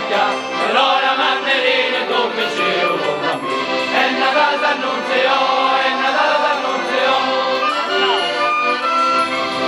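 Music with a choir singing, in a slow chant-like style. A low rumble comes in near the end.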